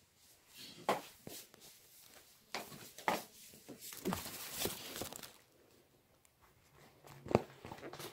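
Handling noise from a phone camera being moved and set in place: scattered knocks and clicks, a stretch of rustling about four seconds in, and one sharp knock near the end.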